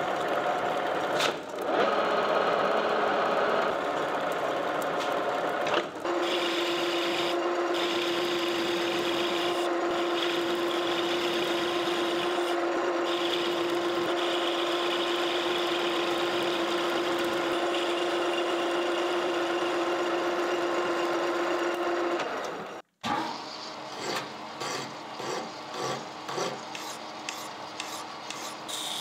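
Metal lathe running with a steady hum, its cutting tool turning a small steel pin, with short breaks about a second and a half and six seconds in. The sound cuts off abruptly near the end, and a tool then rubs against the spinning domed bolt head in short, evenly repeated strokes.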